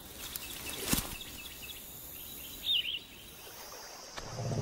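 Outdoor nature ambience with small birds chirping: a run of short, high chirps, a sharp click about a second in, and a louder rising-and-falling call a little before three seconds. Near the end a low, steady hum comes in.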